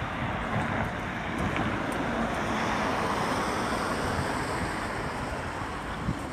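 Wind buffeting a phone's microphone in gusts, over a steady hiss of traffic on a wet road that swells around the middle.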